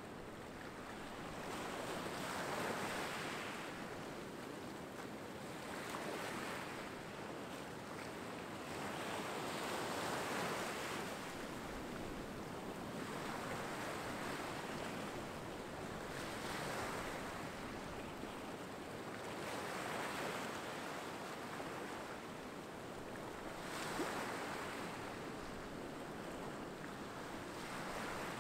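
Waves washing in on a rocky shore, each wash of surf swelling and fading about every three to four seconds.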